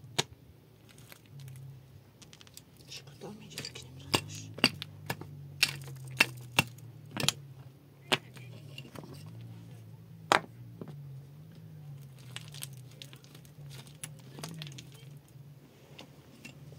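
Woody branches cracking and snapping in a run of sharp cracks, most of them between about four and eight seconds in and one more near ten seconds, over a low wavering hum.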